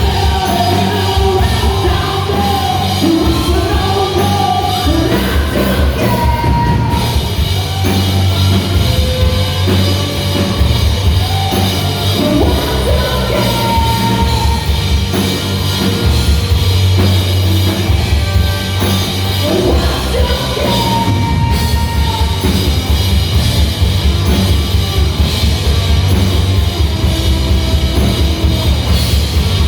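A rock band playing live, with a lead vocal over bass and drums. The singing runs through about the first two-thirds, then the band plays on without it.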